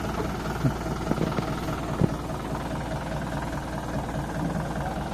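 Heavy diesel machinery running steadily, with a few sharp knocks, the loudest about two seconds in.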